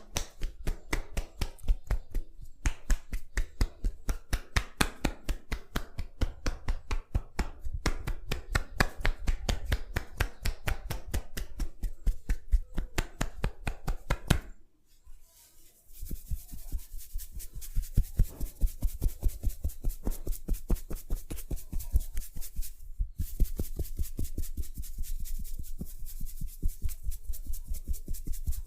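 Fast, rhythmic percussive massage strokes tapping on a person's head and neck, about five a second. They pause for about a second halfway through and briefly again near the end.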